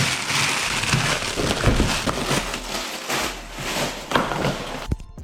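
Packing material and cardboard being handled and pulled out of an opened box: continuous rustling and crunching with a few light knocks.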